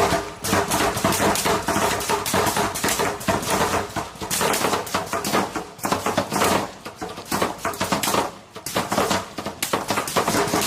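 Small-arms gunfire: rapid, irregular shots following one another closely.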